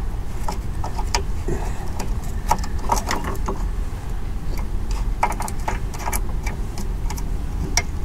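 Irregular small metallic clicks and rattles as a replacement self-propel control cable and its end fitting are handled and hooked into place on a Toro push mower's drive, over a steady low rumble.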